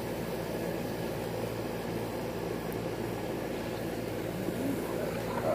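Steady low background hum and rumble, unchanging throughout.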